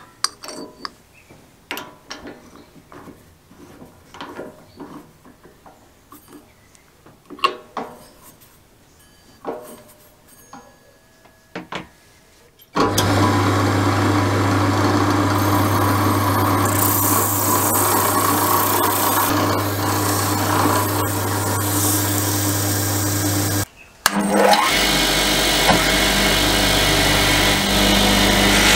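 Scattered clicks and knocks of a telephone bell gong being handled and chucked in a drill press. A little before halfway the drill press motor starts and runs steadily with a low hum, spinning the gong, and a rubbing hiss joins in. After a short break, a bench buffer's motor runs near the end.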